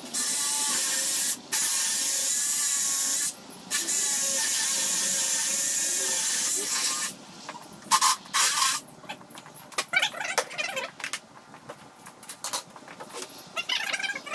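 Power drill boring through a wooden post: it runs in three long stretches with two brief pauses and stops about seven seconds in. Scattered clicks and knocks follow.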